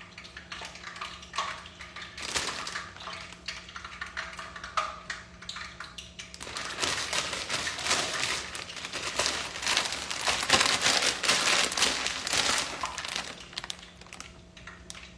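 Kitchen cooking sounds: scattered taps and knocks, then several seconds of dense crackling from about six seconds in, loudest around ten to thirteen seconds, over a faint steady low hum.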